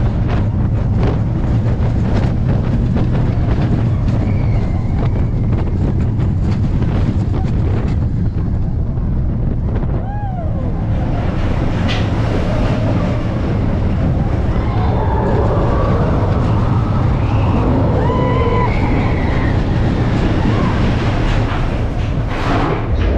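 Wind buffeting the microphone over a steady low rumble, as from a moving vehicle or ride, with faint voices now and then in the background.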